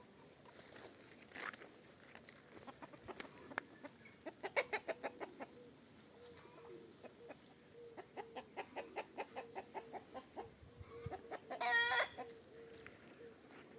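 Chickens clucking in two runs of quick, rapid clucks. Near the end comes one loud, brief squawk.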